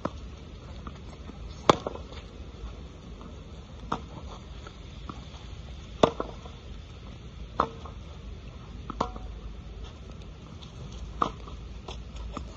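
Tennis ball struck back and forth in a rally: sharp racket hits about every two seconds, some louder and closer than others, over a steady background hiss.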